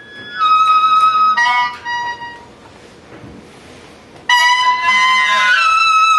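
Improvised free music of high, horn-like held notes: several short notes, a breathy hiss in the middle, then a long steady note that comes in suddenly about four seconds in.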